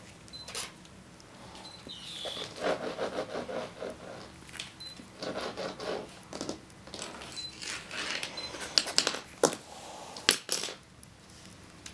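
Chihuahua puppies playing on a plush blanket and a parquet floor: light rustles, scuffs and scattered clicks of small paws and claws. Two sharper clicks come near the end.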